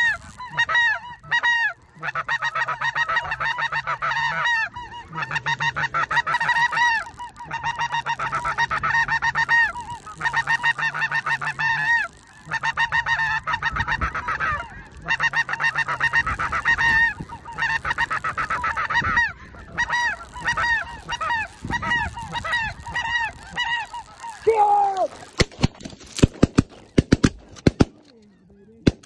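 Snow goose calling: a dense stream of rapid, high honking notes in bursts with short pauses between them. Near the end the honking gives way to several sharp loud cracks.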